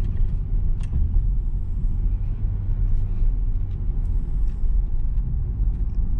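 Steady low rumble of a 2022 Mitsubishi Xpander Ultimate CVT heard from inside the cabin, engine and tyre noise together as it climbs at a steady speed, with a few faint ticks.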